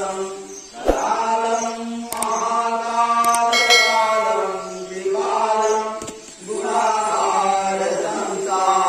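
Voices chanting a Hindu devotional aarti hymn in long held, gliding notes. A few short knocks and a brief bright ringing tone come near the middle.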